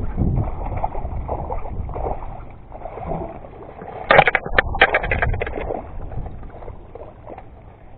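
Water sloshing, with wind on the microphone. About four seconds in comes a short flurry of sharp splashes and knocks lasting under two seconds, and then it fades lower.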